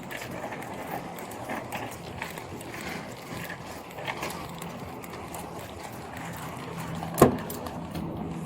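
Footsteps and the clatter of a police officer's duty gear while walking, with one sharp loud knock about seven seconds in.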